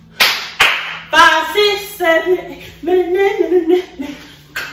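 Two sharp hand claps, then a woman's voice singing short rhythmic phrases without clear words, with another clap near the end.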